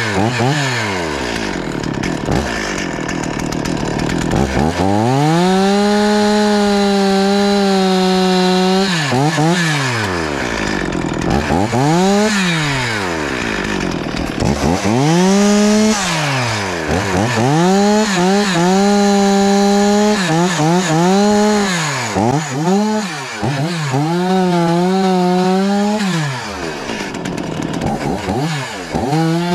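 Stihl MS 440 two-stroke chainsaw running, revved to full throttle and dropped back to idle again and again. Some bursts are brief and some hold at full speed for a few seconds.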